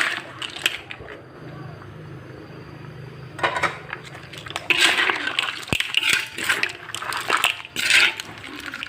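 A spatula stirring lala clams and squid in a pan, with clams' shells and metal clattering and scraping in repeated bursts. After a brief clatter at the start there are about three seconds of only a low steady hum, then the stirring clatter resumes.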